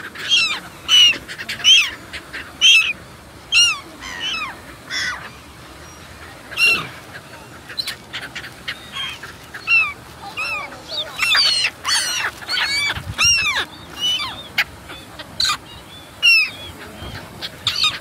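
A flock of black-headed gulls calling: many short, harsh cries from several birds overlapping, coming in quick clusters with brief gaps.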